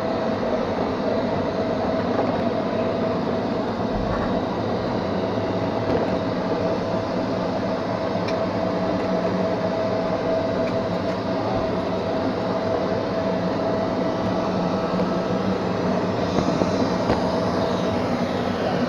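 Neato XV-21 robot vacuum running up close: a steady motor hum and rumble with one constant whining tone over it.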